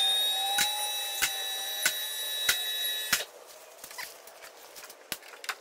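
A vehicle hoist's electric pump motor whines steadily as the lift raises the vehicle, with a regular click about every half second from the safety latches, then cuts off suddenly about three seconds in. A few scattered clicks follow.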